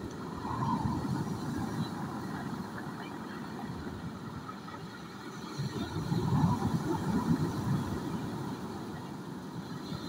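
Sea waves breaking and washing up a beach of large rounded pebbles. The surf swells louder twice, about a second in and again around six seconds in, with a steady low rush between.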